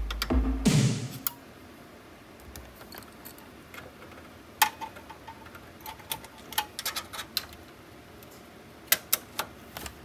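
Cable plugs being pushed into the rear ports of a rackmount PC case, giving scattered sharp clicks and taps of connector against metal panel: one about halfway through, then small clusters later on. Background music cuts out about a second in.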